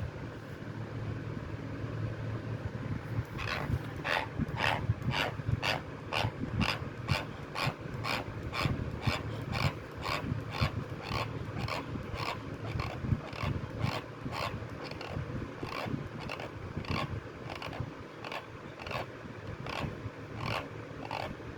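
Teeth grinding in a steady rhythm during an illness: short rasping scrapes, about two to three a second, starting a few seconds in, over a low background hum.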